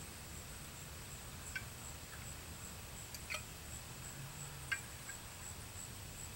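Quiet outdoor ambience: insects give a high, thin chirring that pulses steadily about three times a second over a low wind rumble, with a few light clicks scattered through it.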